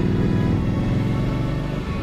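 Background music, with a motorcycle engine's running sound underneath it that fades out near the end.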